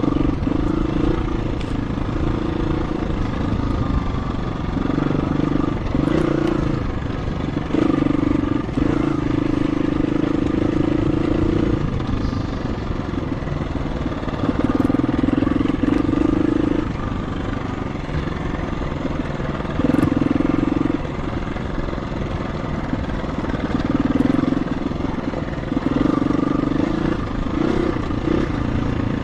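KTM 350 EXC-F dirt bike's single-cylinder four-stroke engine running on a trail. It pulls hard in about seven bursts of throttle and drops back to lower running between them, with a few knocks and rattles.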